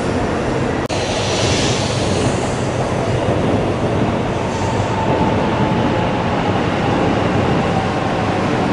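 Shinkansen bullet train running through the station: a loud, steady rush of wheel and air noise, with a faint tone sliding slowly lower in the second half.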